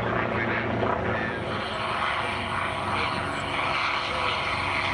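Propeller aircraft engine running with a steady drone.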